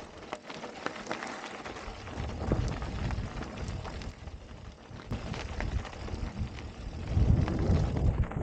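KTM Prowler Master electric mountain bike rolling over loose rock and gravel: a continuous crunch from the tyres with many small clicks and rattles. Wind buffets the camera microphone as a low rumble, louder from about seven seconds in.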